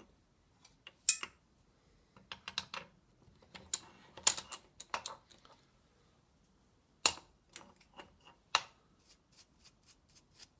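Steel workpiece and tools being handled at a drill-press vise: an irregular series of metal-on-metal knocks, scrapes and clatter. The sharpest knocks come about a second in, around four seconds in, and at about seven and eight and a half seconds.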